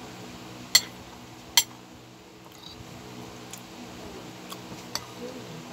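A metal spoon clinks sharply against the eating bowl twice, a little under a second apart, then taps it lightly a few more times while scooping food. A steady low hum runs underneath.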